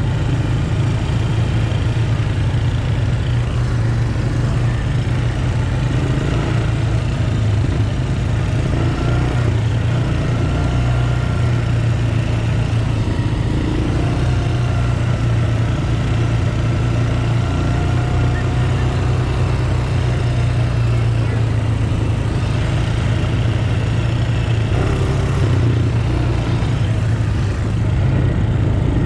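Honda Recon 250 ATV's air-cooled single-cylinder four-stroke engine running steadily under way on a dirt trail, with a steady low drone and the rush of wind and tyres.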